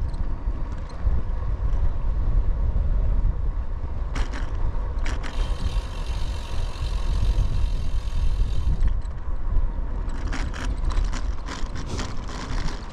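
Wind rumbling on the microphone of a moving bicycle, with road and riding noise and a few sharp clicks and rattles, a cluster of them near the end.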